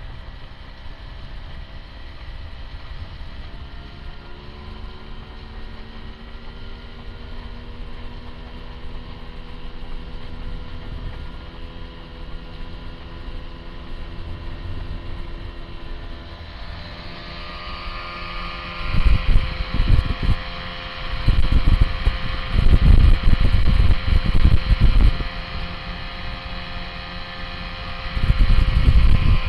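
Small outboard motor running steadily as the boat moves, its pitch rising a few seconds in, over rushing water. In the second half, heavy wind buffeting on the microphone comes and goes in loud gusts.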